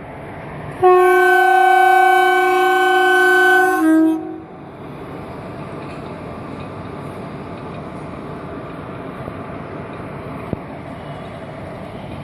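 Air horn of an Indian Railways WAP-4 electric locomotive giving one loud blast of about three seconds, a weird-sounding chord of several steady notes that drops briefly to a lower note as it cuts off. After it comes the steady noise of the moving train, with a single sharp click near the end.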